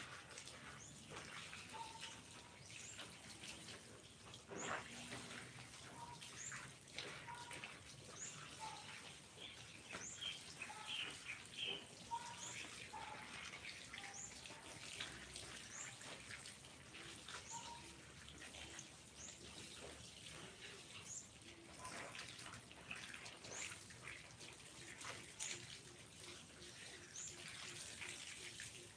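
Water from a garden hose running into an aluminium basin of clothes, with splashing and sloshing as the laundry is worked by hand. A bird gives a short high chirp repeatedly, about once a second.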